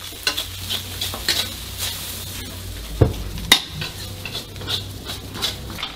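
Metal ladle stirring and scraping food in a hot wok, with frying sizzle and a steady patter of small clicks. Two sharp clangs of the ladle on the wok about three and three and a half seconds in.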